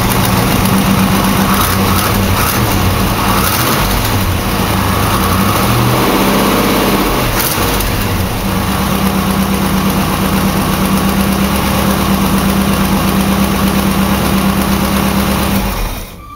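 350 V8 running on a homemade steel-tube exhaust header just after being started: its speed rises and falls during the first half, then it idles steadily until it is shut off near the end.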